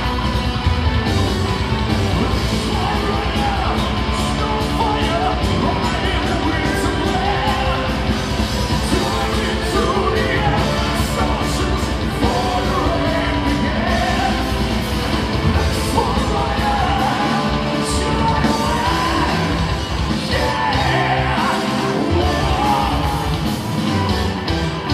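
Symphonic metal band playing live, a full band with keyboards and guitars under a lead singer's vocals, heard from the audience in a large hall.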